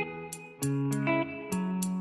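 Background music between sung verses: guitar chords over a steady beat.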